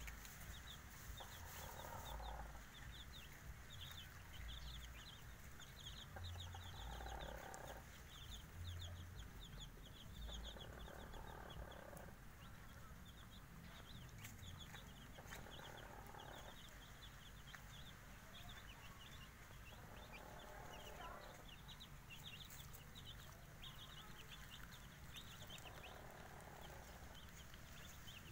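Faint, continual peeping of five-day-old Javanese kampung chicks, many quick high cheeps overlapping. Every few seconds the mother hen gives a soft low clucking that lasts about a second.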